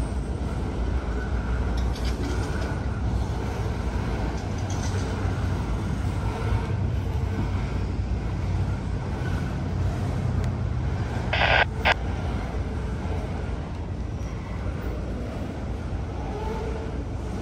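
Freight train rolling slowly past: a steady low rumble of wheels on rail, with one brief sharp hiss about two-thirds of the way through.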